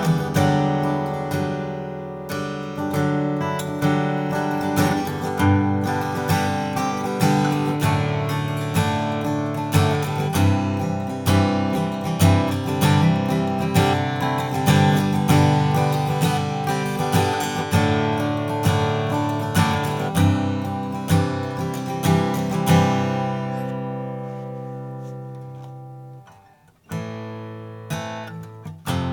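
A Martin Custom Shop Style 18 acoustic guitar with an all-flamed-mahogany body being played, a steady run of picked notes and strummed chords. Near the end a chord is left to ring out and fade, then after a brief pause the playing starts again.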